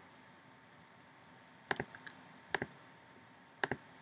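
Computer mouse clicking: four short paired clicks, each a quick press and release, in the second half, over quiet room tone with a faint steady hum.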